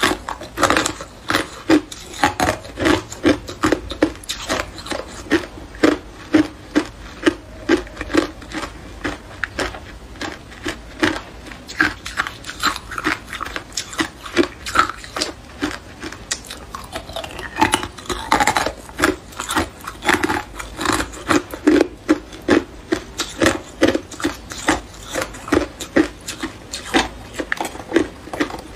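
Clear ice cubes being bitten and chewed close to the microphone: a steady run of sharp, crisp crunches, about two to three a second.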